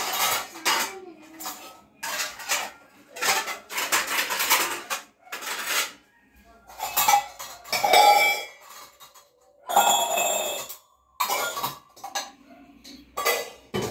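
Stainless steel pots and plates clattering and clanking as they are handled and stacked: a string of irregular knocks, a few of them ringing briefly.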